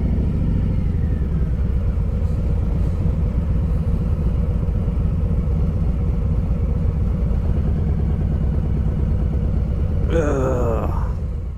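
Motorcycle engine running at steady low revs, a deep rumble, with a short rising rev near the end.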